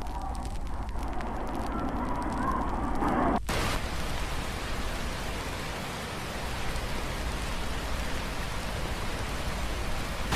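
Heavy rain, a steady even hiss; about three and a half seconds in the sound changes abruptly to a brighter, fuller rain noise.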